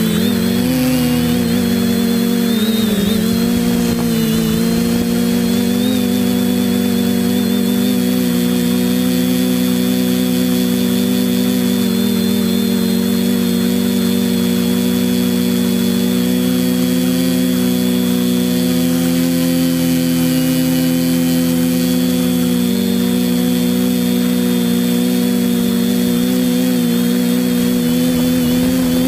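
Quadcopter's electric motors and propellers droning steadily, heard up close from the onboard camera, with small dips and rises in pitch as the throttle is adjusted, a few near the start and again about two-thirds of the way through.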